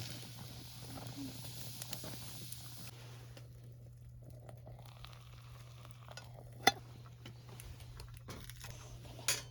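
Food faintly sizzling as it cooks over a campfire, the hiss dying down about three seconds in. A sharp knock, like a utensil against cookware, comes about two-thirds of the way through, and another near the end.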